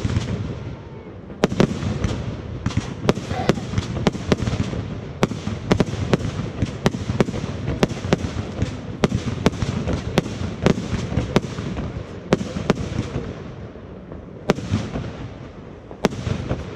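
Fireworks display: a dense, irregular string of sharp bangs, often several a second, over a steady low rumble. The bangs thin out briefly before a loud one near the end.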